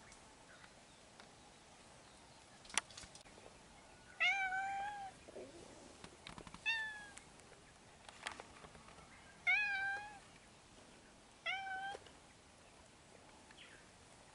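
A cat meowing four times, short high meows a couple of seconds apart, with a sharp click before the first and another between the second and third.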